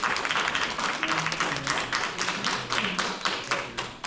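Audience clapping, many hands at once, stopping just at the end, with a few voices faintly underneath.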